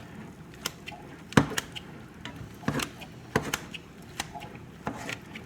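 A utensil chopping cooked chicken against a pan: irregular sharp knocks and scrapes, about a dozen, with one louder strike about a second and a half in.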